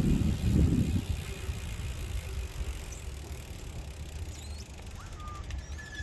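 A bicycle rolling past on the paved trail. The tyre noise is loudest in the first second and then fades to a low steady rush.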